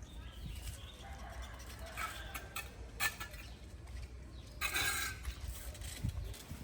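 Two short, rasping bird calls, the louder one about five seconds in, over a steady low rumble.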